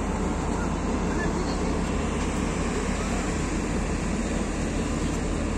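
Steady low rumble of idling diesel engines under a constant wash of noise, with no sudden events.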